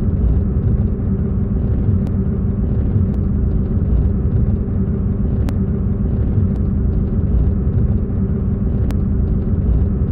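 Steady low rumble of a motor vehicle running, with an even engine hum and no change in pace.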